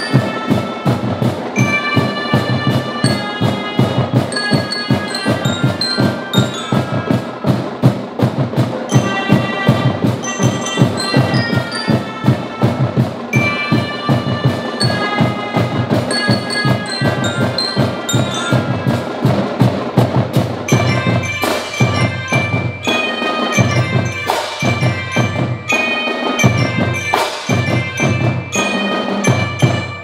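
A marching band of melodicas, mallet keyboards and drums playing a fast piece: bright bell-like melody over quick, steady drum strokes. About twenty seconds in the music changes, with deeper bass notes and heavier accented hits.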